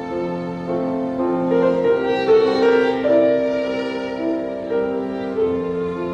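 Background music: a slow melody on violin over long held notes.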